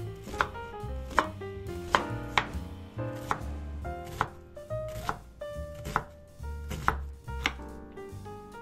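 Chef's knife dicing a white onion on a wooden cutting board: sharp, separate taps of the blade striking the board, about one to two a second at an uneven pace. Soft background music plays underneath.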